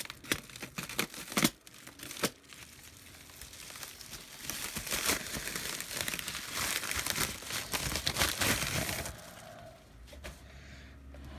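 FedEx shipping packaging being torn open and crinkled by hand. A few sharp crackles come in the first couple of seconds, then a longer, louder stretch of rustling and tearing midway through, which dies down near the end.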